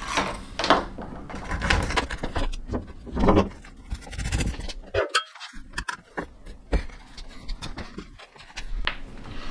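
Hands handling a solar panel cable and a nylon cable clamp against the aluminium panel frame: rustling and scraping with a few small sharp clicks around the middle.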